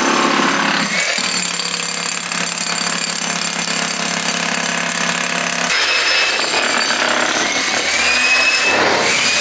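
Electric demolition hammer running, breaking out brickwork and cement. The sound changes about a second in and again near six seconds.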